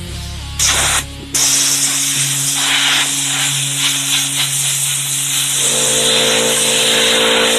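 Compressed air hissing from an air compressor hose as it blows grass and debris out of a lawn mower engine, in a short blast and then one long continuous blast, over background music.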